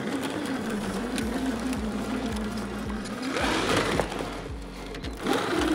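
Brushless electric motor and drivetrain of a 1:10-scale 3D-printed KamAZ 6350 8x8 RC truck whining steadily as it is driven hard on snow, the pitch wavering with speed. A brief rush of noise comes about three and a half seconds in.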